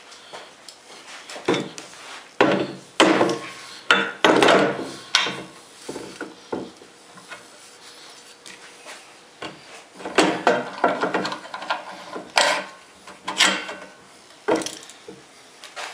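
A small electric motor being handled and set onto a steel mounting plate: irregular metal clunks, knocks and scraping as it is moved into position. The motor is not running.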